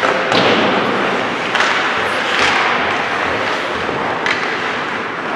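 Steady din of a stick game in progress, with about four sharp knocks spread through it.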